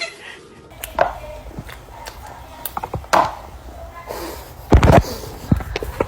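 Scattered knocks and taps, with a heavier low thump about five seconds in, the loudest sound.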